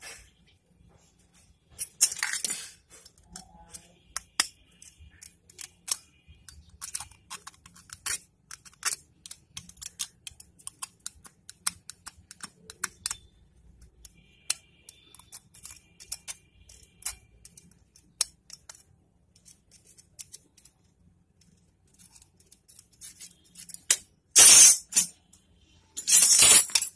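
Small metal clicks, taps and scrapes of hand tools working on a motorcycle spark plug, scattered and irregular, with two louder short bursts of hissing noise near the end.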